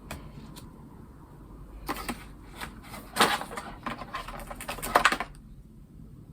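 Low-profile GL Tactile key switches on a Logitech G915 keyboard clicking under quick keystrokes. A short burst comes about two seconds in, then a longer, denser run of keystrokes stops about five seconds in.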